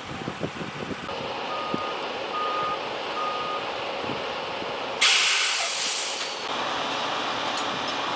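A vehicle's reversing alarm sounding three beeps, then about five seconds in a sudden loud hiss of released air that fades away over a second or so.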